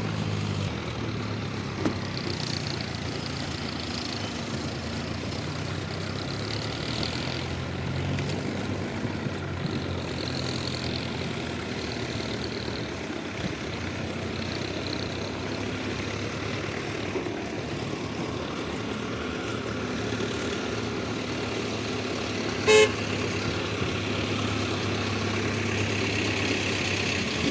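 Diesel engine of heavy earthmoving machinery running steadily at an even pitch, with one short, loud horn toot near the end.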